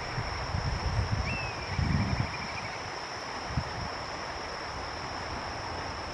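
Faint whistled call of a black kite about a second in: a quick rising note that falls away into a short wavering trill. A steady high insect drone runs underneath, and low wind rumble on the microphone is loudest in the first two seconds.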